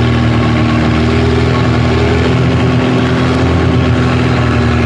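Longtail boat's engine running loud and steady at an even pitch, heard from on board the boat.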